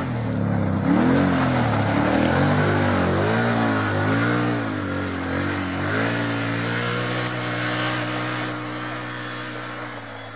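Side-by-side UTV engine revving hard in repeated rising-and-falling surges as the buggy spins through snow and mud, then pulling more steadily under power.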